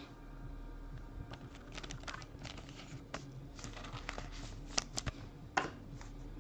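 Scattered soft clicks and rustles of trading cards being handled, with a few sharper clicks about three-quarters of the way through.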